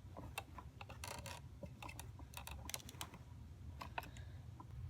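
Faint, scattered light clicks and taps, with a brief rustle about a second in: small objects being handled.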